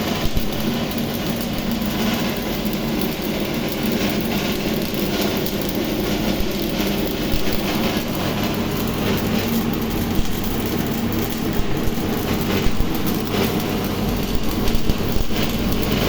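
Stick arc welding with a Riland Arc 250GTS inverter welder: the arc gives a steady, continuous crackle and sizzle over a low hum.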